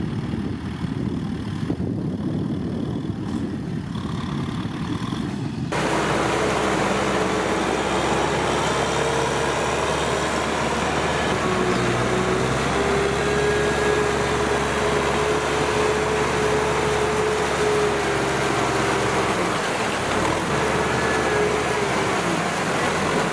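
Kubota M6040SU tractor's diesel engine running steadily under load as the tractor pushes mud with its front blade. The sound is muffled at first, then turns abruptly brighter and fuller about six seconds in.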